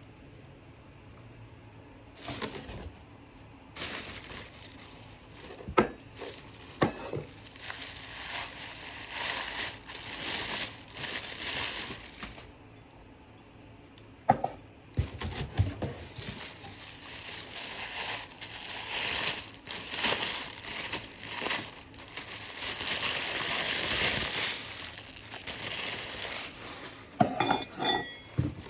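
Royal Albert bone china dinnerware clinking and knocking as it is unpacked, amid crinkling packing material. The sounds are irregular, with a few sharper clinks and a short lull partway through.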